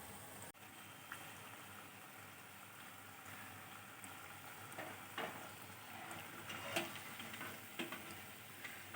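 Urad dal vadas sizzling as they deep-fry in hot oil. In the second half a few light clicks and knocks join in.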